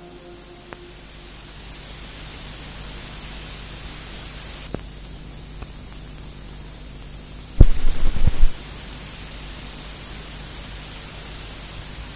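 Steady hiss of static after the synthesizer tones fade out. About eight seconds in, a short burst of loud, low crackling thumps breaks through, then the hiss carries on.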